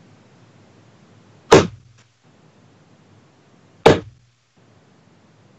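Two steel-tip darts striking a bristle dartboard, about two and a half seconds apart, each a single sharp thunk.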